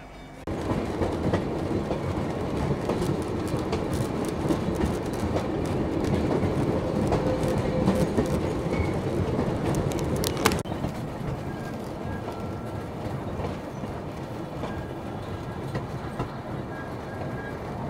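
Tourist train rolling along the track: a steady rumble and clatter of wheels on the rails, starting about half a second in and dropping a little in level about ten seconds later.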